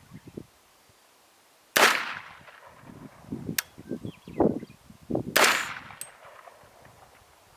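Two suppressed rifle shots from an AR-15 in 300 Blackout firing subsonic rounds through a Whisper Pickle 30 suppressor, about three and a half seconds apart. Each is a sharp report with a short trailing decay, and a fainter sharp tick follows each shot.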